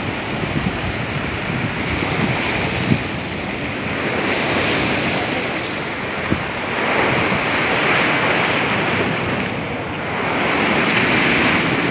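Sea surf breaking and washing over shore rocks, surging three times, with wind buffeting the microphone.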